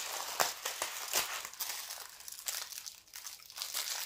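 Clear plastic packaging crinkling and crackling as it is handled, with a few sharper crackles, the loudest about half a second and a second in.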